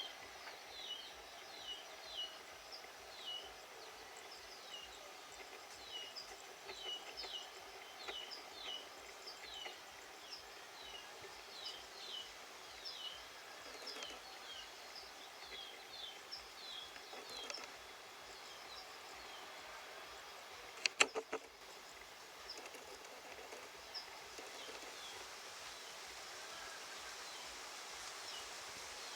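Small birds chirping repeatedly in short, falling notes over a faint outdoor hiss, dying away after about 17 seconds. Two sharp clicks come about 21 seconds in.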